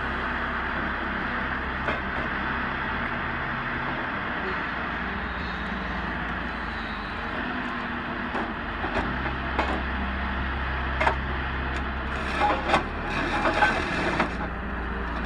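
Heavy machine's diesel engine running steadily while it works on tree roots, with sharp cracks and snaps of wood that start about halfway through and come thicker near the end.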